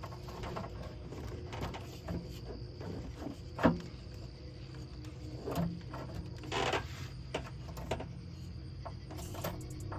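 Scattered clicks and knocks of engine-bay parts being handled while the stock air intake is taken apart, with one sharper click about three and a half seconds in and a short rustle near seven seconds. Crickets chirr steadily behind.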